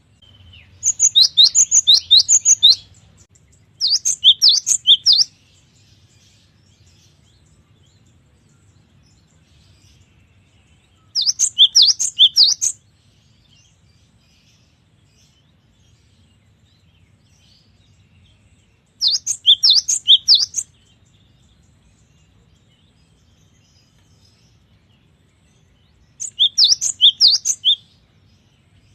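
Gelatik batu (cinereous tit) singing in five short phrases of quick, high, repeated whistled notes, each phrase about a second and a half long, with pauses of several seconds between them.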